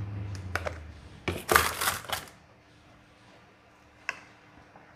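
Plastic food containers clattering and rustling as they are pushed into a fridge-freezer's freezer compartment, with a few light clicks, then a thump at the very end as the freezer door is shut.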